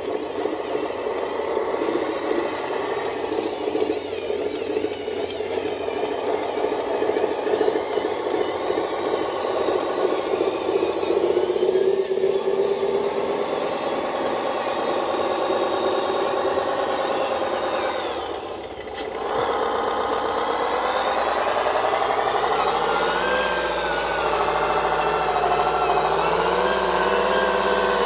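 Radio-controlled model truck driving through mud, its motor sound running continuously and shifting up and down in pitch, with a short dip about two-thirds of the way through and a series of rising revs near the end.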